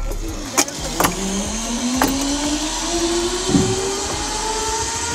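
Zipline trolley running along a steel cable: a few sharp clicks early, then a whine that rises slowly and steadily in pitch as the rider picks up speed.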